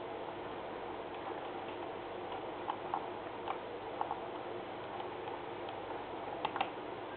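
A few light, sharp clicks, most in quick pairs, over a steady background hiss.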